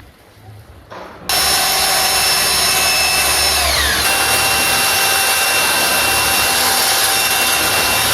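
Power drill boring into a wall, starting up about a second in and running steadily with a high whine; its pitch sags once partway through as it loads up in the hole.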